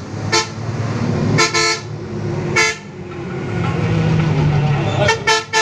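Bus horn sounding in short toots, about six of them, some in quick pairs, over the bus engine's low running hum.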